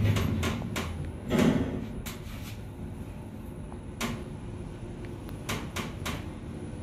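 Inside a moving Hyundai WBST 2 traction elevator car there is a low steady hum. A thump comes right at the start and a stronger one about a second and a half in, with scattered sharp clicks and knocks after.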